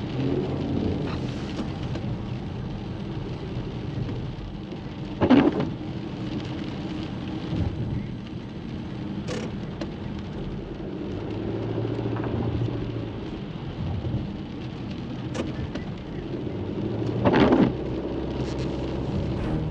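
Steady rain, with a low engine-like hum of traffic underneath. Two short, loud splashing whooshes come about five seconds in and again near the end.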